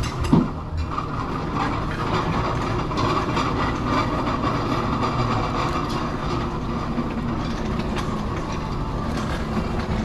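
Steady restaurant background noise, a low rumble and hum, with one short knock just after the start.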